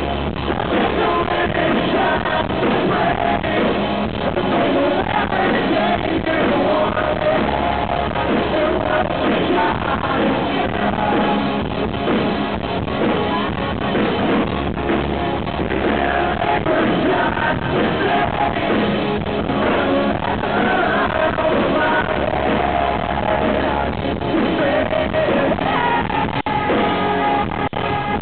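Live rock band playing: electric guitars and drums, with a male lead vocal singing over them.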